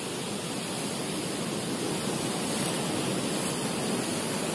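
Ocean surf breaking on a rocky shore: a steady, even rushing noise that grows slightly louder.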